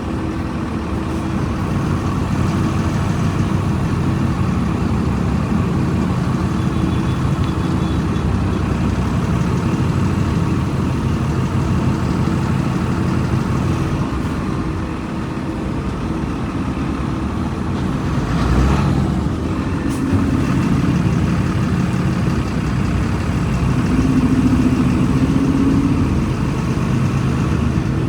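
Volkswagen Volksbus 17.230 EOD bus's diesel engine running steadily. A brief knock sounds about two-thirds of the way through.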